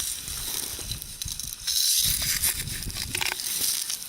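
Crunching and crackling of icy slush as a metal detector's search coil is pushed through it, with irregular cracks and low thuds throughout.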